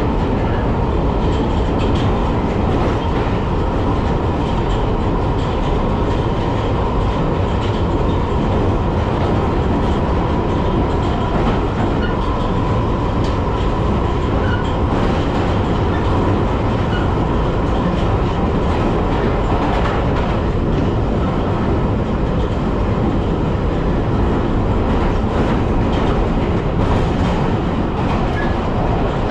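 Piccadilly line 1973 Stock tube train running at speed, heard from inside the carriage: a steady, loud noise of wheels on rails with a faint steady whine.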